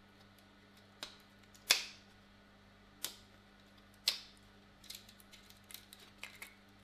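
Sharp snaps and cracks of 3D-printed support material breaking away from a carbon-fibre-filament print as it is pulled off by hand: a few separate snaps, the loudest about two seconds in, then a run of smaller crackles near the end. The supports come away easily.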